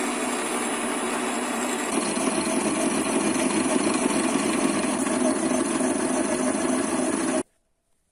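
TV-7M school lathe running while a boring bar cuts a sheet-metal washer held in its chuck: a steady machining noise. It grows a little louder about two seconds in and cuts off suddenly near the end.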